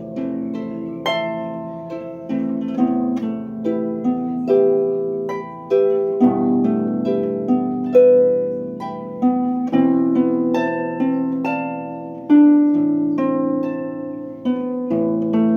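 Solo improvised harp music: notes and chords plucked one after another at an unhurried, uneven pace, each ringing and fading away.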